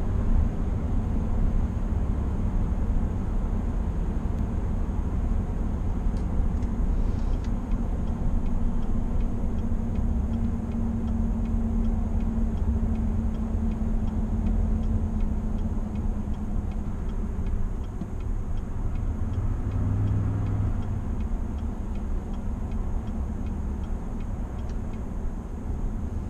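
Steady road, tyre and drivetrain noise inside the cab of a 2020 GMC Sierra 1500 AT4 pickup cruising at highway speed. A faint, regular ticking runs through much of it.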